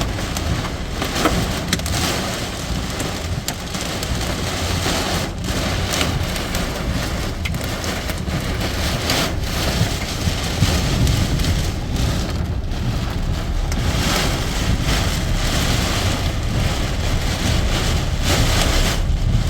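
Heavy rain pouring steadily, with a constant low rumble under it.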